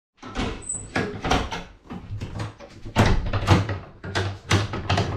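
An irregular run of knocks and bangs, about two or three a second, like doors and cupboard doors being handled.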